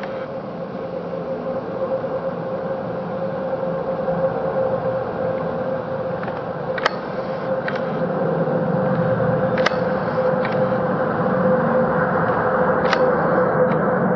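Airbus A350-900's two Rolls-Royce Trent XWB turbofan engines at takeoff power as the airliner climbs away: a steady jet roar with a humming tone, growing gradually louder.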